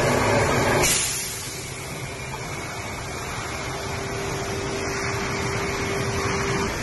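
Automatic car wash machine running, its rotating roller brush scrubbing a car: a steady rushing, whirring noise with a faint steady hum. It is louder and hissier for about the first second, then drops to a lower, even level.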